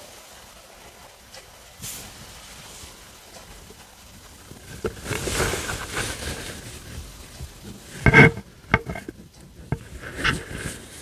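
A human stomach rumbling and gurgling as it digests a meal. After a quiet start, irregular gurgles begin about five seconds in. The loudest is a sharp squelch about eight seconds in, followed by a few shorter ones.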